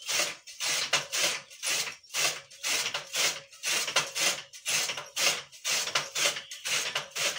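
Hand-turned flywheel chaff cutter chopping green fodder for a buffalo: its blades slice through the stalks in a steady rhythm of swishing crunches, about two a second.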